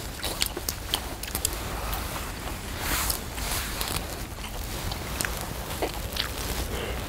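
Close-up eating sounds of snow crab: shells cracking and clicking as legs are pulled apart, with crab meat sucked out and chewed. There is a short louder slurp about three seconds in.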